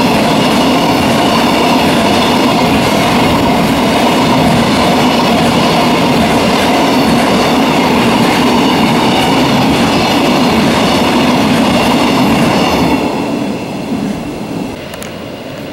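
A freight train of oil tank wagons rolling past at speed: a steady, loud rush and rumble of steel wheels on rail. About 13 seconds in the last wagon goes by, and the sound drops to a fainter rumble that fades away.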